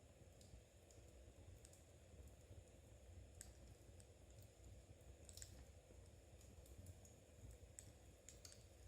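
Faint, irregular clicks of metal knitting needles touching as stitches are worked, over a low steady hum.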